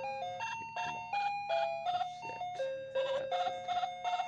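Background music: a melody of short, clear notes stepping up and down over a steady low note.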